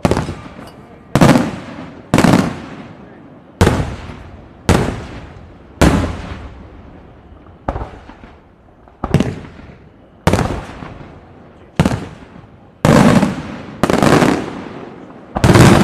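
Aerial firework shells bursting one after another, about one bang a second, each followed by an echo that dies away before the next.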